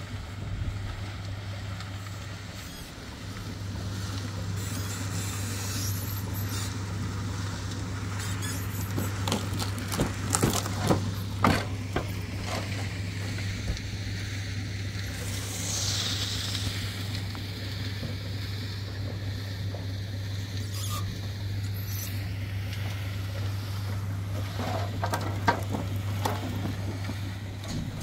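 Portable concrete mixer running with a steady low hum. A few sharp knocks come about ten to twelve seconds in, and a brief high squeal falls in pitch around sixteen seconds.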